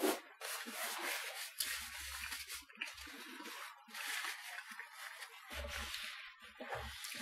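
A paper tissue pulled from a tissue box with a quick swish, then rustled and crumpled in the hands in two long stretches, with a few low bumps.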